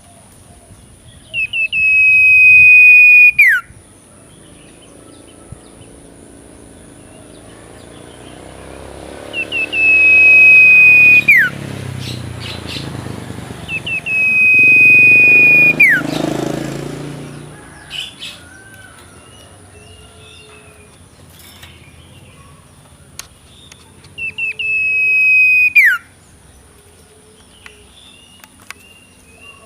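A two-month-old owlet calling: four long, loud whistled calls, each held on one high pitch for about two seconds and then dropping sharply at the end. A low rumbling noise swells under the middle two calls.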